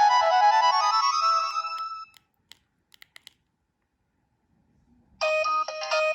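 Nokia 2125i preloaded ringtones: one melody ends on a climbing run of notes in the first two seconds, a few faint clicks follow, and a new ringtone melody starts abruptly about five seconds in.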